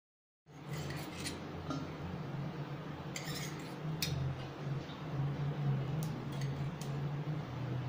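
Scattered clinks and taps of metal against a stainless steel cooking pot as oil is added, over a steady low hum.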